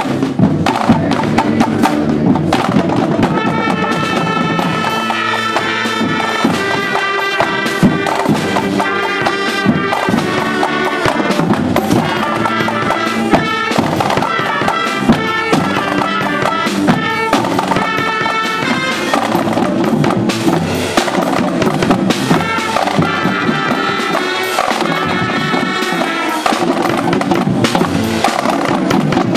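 A school marching band playing a tune: flutes, clarinets and saxophones carry the melody over drums keeping the beat.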